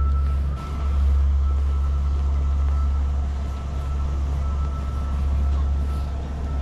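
Steady low mechanical hum with a constant faint high-pitched whine running over it.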